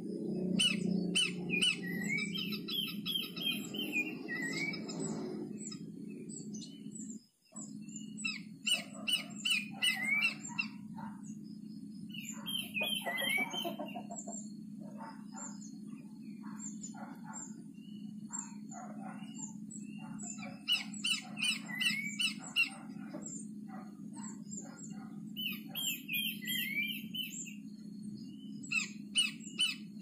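Horsfield's babbler (pelanduk semak) calls: repeated groups of rapid chirps with short whistled notes gliding down, coming in phrases every few seconds. A steady low hum runs underneath and cuts out for a moment about seven seconds in.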